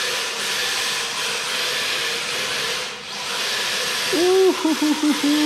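Electric RC drift car on an MST chassis driving on a tiled floor: a whirring hiss from its motor and sliding tyres, swelling and easing with the throttle and dipping briefly about three seconds in. From about four seconds in, a man's voice joins with a drawn-out, wavering "ouh".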